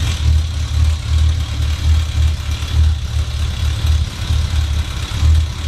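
Honda CB1000's inline-four engine idling warm, with a low pulse about twice a second; the knock it makes on a cold start has gone quiet now that it has warmed up.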